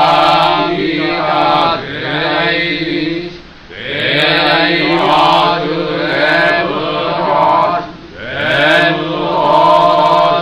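Buddhist sutra chanting in a steady, near-monotone voice, held on one pitch, with short breaks for breath about two, three and a half, and eight seconds in.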